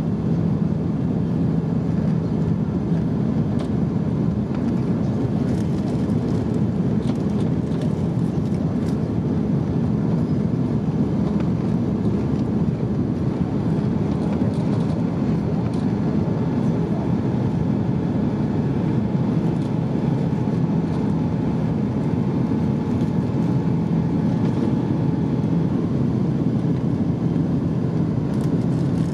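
Steady cabin noise of a Qantas Airbus A330-300 climbing out shortly after takeoff, heard from a window seat: a low, even rumble of its General Electric CF6 engines and the airflow past the fuselage.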